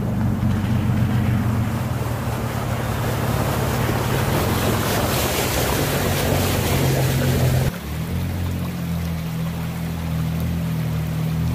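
Pickup truck engine running as a Toyota Tacoma drives up a shallow creek, its tyres splashing through the water, growing louder until it passes close by about six seconds in. After a sudden cut near eight seconds, another truck's engine hum over the sound of flowing creek water.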